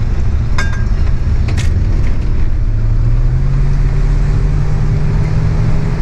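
A van driving onto the highway, heard from inside the cab: a heavy low rumble of engine and road. The engine note rises as it picks up speed, then holds steady.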